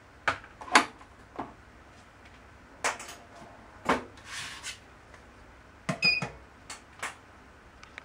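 Scattered sharp clicks and knocks of handling on the escape-room button panel, with a short high beep about six seconds in from its card reader as a card is laid on it.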